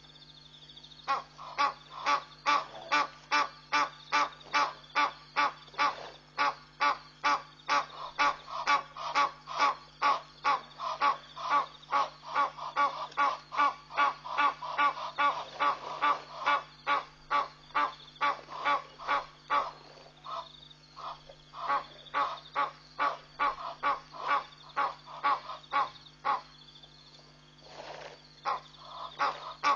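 An animal calling in a long, rapid series of identical notes, about two to three a second, breaking off briefly twice before resuming; a steady low hum runs underneath.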